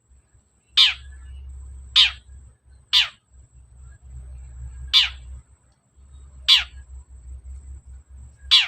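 Long-tailed shrike (cendet) giving harsh, falling scolding calls: six short rasping notes, each sweeping down in pitch, spaced one to two seconds apart, over a steady low hum.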